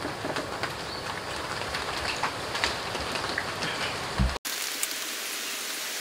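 Handling noise of hands working PVC pipe fittings and a rubber coupling on a fridge compressor: scattered small clicks and taps over a steady hiss, with one heavy thump about four seconds in and a brief cut in the sound just after.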